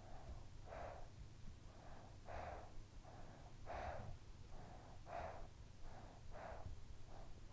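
A sleeping child breathing softly and evenly, about one breath every second and a half, each breath a pair of puffs with the second louder.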